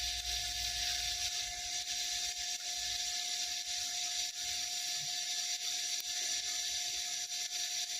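Lift-TIG arc from a Predator 5-in-1 inverter welder burning steadily on thin 0.9 mm sheet metal: an even hiss with a constant whine and faint crackle.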